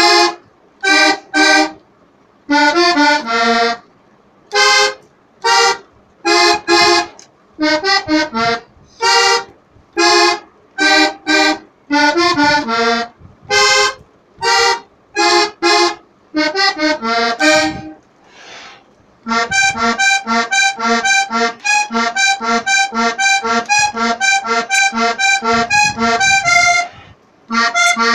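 Accordion playing short melodic phrases broken by brief pauses. About two-thirds of the way in it changes to a steady run of quick, evenly repeated notes and chords, with a short stop near the end.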